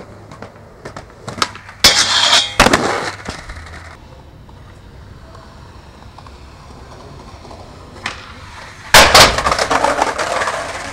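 Skateboard slapping down hard on concrete twice, about two seconds in, with wheels rolling after. Near the end there is a louder slam as a board lands at the bottom of a stair set, then the wheels rattle as it rolls away on the concrete.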